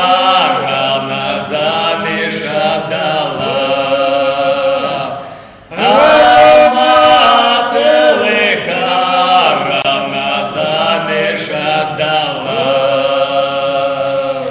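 Men singing a folk song in Russian, in long drawn-out phrases with several voices sounding together. The singing breaks off briefly for a breath about five and a half seconds in, then comes back loud.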